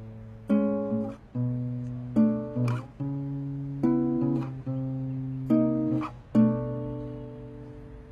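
Instrumental song intro on acoustic guitar: chords struck about every one and a half seconds, each left to ring, the last one fading away near the end.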